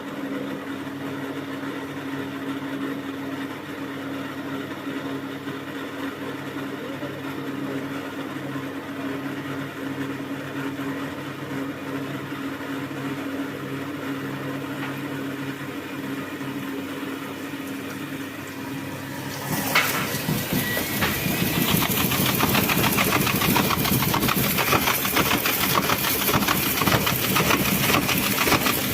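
Thomson washing machine running with a steady hum. About two-thirds of the way through it changes abruptly to a louder, rushing, rattling sound with a faint rising whine, as the machine moves into a new phase of the cycle.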